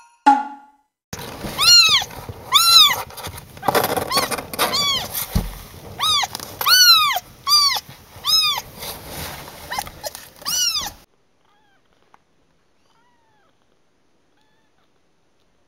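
A two-to-three-week-old calico kitten mewing over and over: about ten high calls, each rising and then falling in pitch, stopping about eleven seconds in. A soft thump comes about halfway through.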